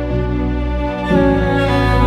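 Sad background music with sustained bowed strings, the chord changing about a second in.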